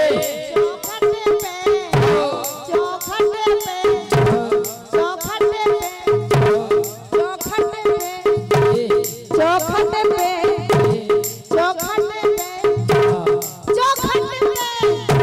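Bundeli folk-music interlude: a dholak beating a fast, even rhythm, a hand-held jingle rattle shaken in time, and a harmonium holding a melody over it.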